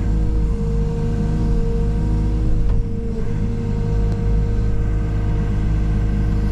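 A steady low engine drone with a held hum over a rumble, unchanging throughout.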